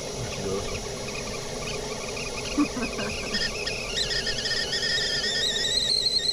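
Whistling kettle coming to the boil: brief squeaky chirps as the whistle tries to sound, then from about halfway a steady whistle that grows louder and slowly rises in pitch.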